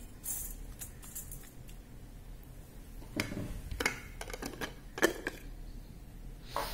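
Several light knocks and clicks of objects being handled, irregularly spaced, the loudest about three and five seconds in.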